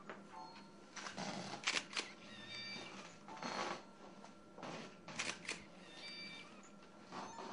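Camera shutters firing in short bursts, several times, with brief electronic beeps between the shots.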